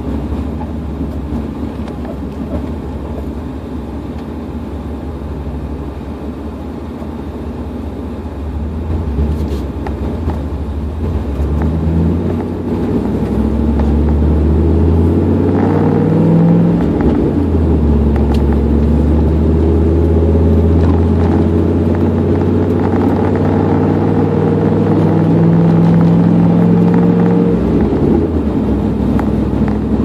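Straight-piped exhaust of a 1998 Dodge Dakota, heard from inside the cab. It rumbles low at light throttle, then pulls harder from about twelve seconds in, with a short break in the pull partway through, a shift of the five-speed manual. It then holds a steady drone until the throttle comes off near the end.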